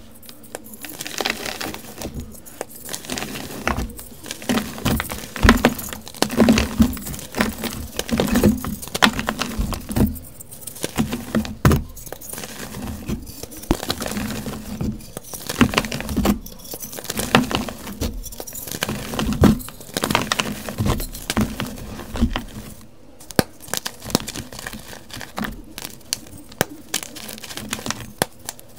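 Soft blocks of gym chalk crushed and crumbled in the hands: dense, irregular crunching and crackling as the blocks break apart into crumbs and powder.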